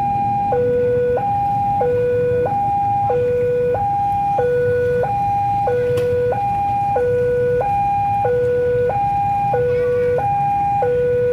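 Railway level-crossing warning alarm sounding, the signal that a train is approaching and the barriers are down. It is an electronic two-tone signal that alternates steadily between a lower and a higher note, about two-thirds of a second each, over a steady low rumble.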